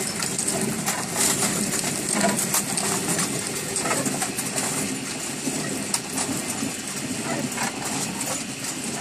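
Hand-turned stone mill grinding dried corn: a steady grinding of stone on stone with a dense crackle of kernels being crushed.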